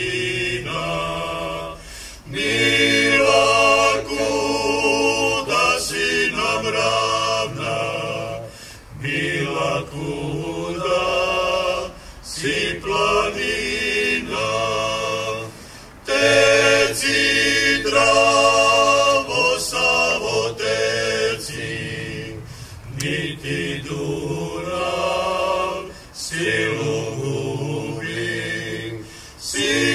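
Unaccompanied choir singing a cappella, in sustained phrases a few seconds long with short breaks between them.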